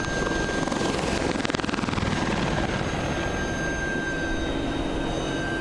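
AH-64 Apache attack helicopter flying past, its rotor beating fast. It is loudest with a falling pitch about one and a half to two seconds in.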